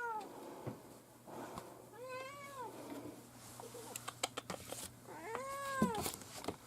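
A cat meowing twice, each meow a drawn-out call about two-thirds of a second long that rises and falls in pitch, about 2 seconds in and again about 5 seconds in. A few sharp clicks come between the meows.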